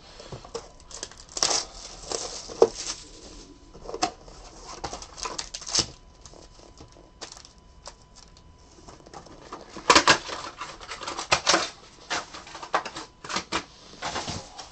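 Small cardboard trading-card boxes and card packs being handled on a table: irregular taps, clicks and rustles, busiest about ten seconds in.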